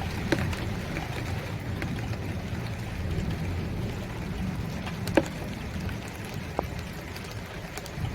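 Steady rainfall with a low rumble underneath and scattered sharp drops, the loudest about five seconds in.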